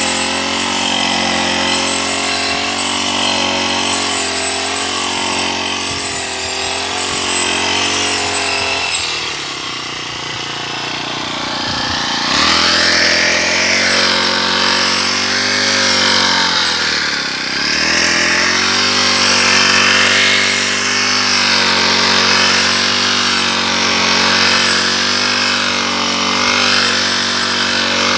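Honda backpack brush cutter's small four-stroke engine running at high revs while its cutting head scythes through tall grass. The engine eases off about a third of the way through, revs back up a few seconds later, and dips briefly once more.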